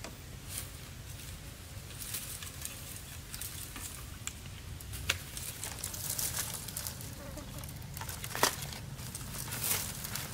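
Dry bamboo sticks and fallen bamboo leaves rustling and crackling as they are handled, with scattered clicks and knocks of stick on stick; the sharpest knock comes about eight and a half seconds in.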